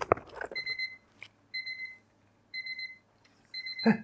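Tefal ActiFry air fryer's battery-powered electronic timer beeping its alarm: four short groups of rapid high beeps, about one group a second. A knock sounds just at the start.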